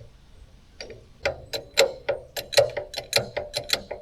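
Ratcheting tool clicking on the sawmill's frame: a run of sharp ratchet clicks, about three a second and unevenly spaced, starting about a second in.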